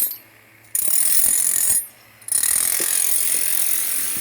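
Electric demolition hammer chiselling concrete, running in bursts and briefly stopping twice.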